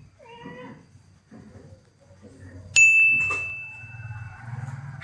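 A single bright ding, struck once about halfway through and ringing on as one clear tone that fades over about a second and a half.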